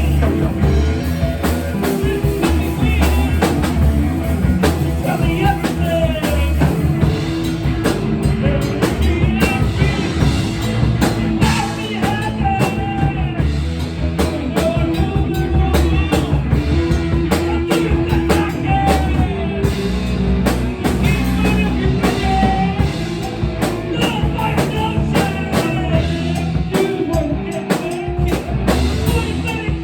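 Rock music played on a drum kit, with a strong bass line and guitar, with steady drum beats throughout.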